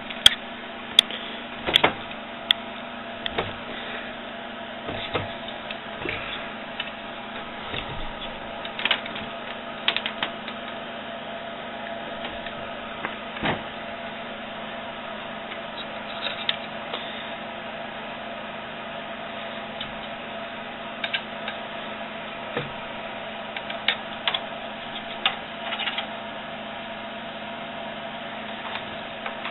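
Scattered light taps, clicks and scrapes of a Persian cat batting and clawing about in a wooden dresser drawer, over a steady low hum.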